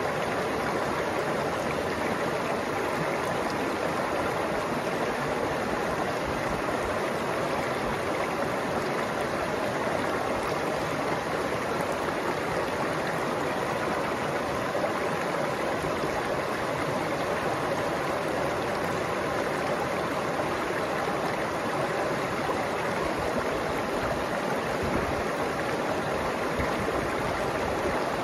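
Shallow mountain stream running over rocks and pebbles: a steady, even rush of water.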